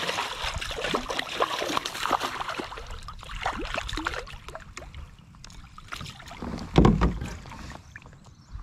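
Water splashing and dripping around a fishing kayak, busiest in the first few seconds, with scattered small clicks and knocks, then a single heavy thump about seven seconds in.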